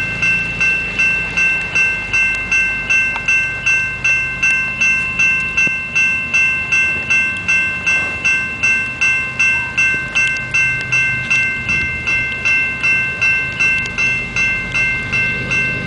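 Railroad grade-crossing bell ringing steadily, about two and a half strokes a second, with the crossing signals active and a low rumble underneath.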